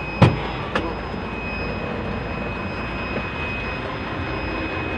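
Steady engine and road rumble of a heavy truck heard inside its cab while driving, with a thin, steady high whine over it. Two sharp knocks come within the first second.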